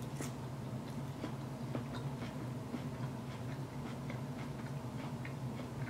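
A mouthful of fettuccine alfredo being chewed close to the microphone: many small, irregular wet mouth clicks over a steady low hum.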